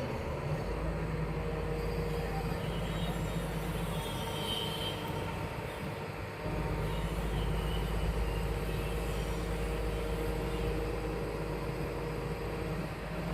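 Excavator diesel engine running steadily with a low rumble, getting louder about halfway through as it comes under more throttle.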